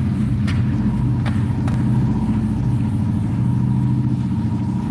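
A steady low motor hum, even in pitch, with a few faint swipes of a duster wiping a chalkboard.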